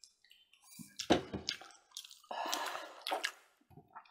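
Quiet handling sounds at a table: a light knock about a second in, then soft sloshing of liquid as a partly filled plastic bottle is picked up and swung for a flip.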